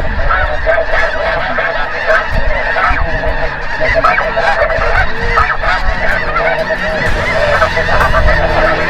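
A large flock of snow geese calling, a dense unbroken clamour of many overlapping honks.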